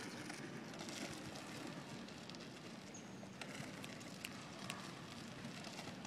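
Remote-controlled utility cart on wheelchair drive motors moving along: a faint, steady rolling noise with scattered small clicks.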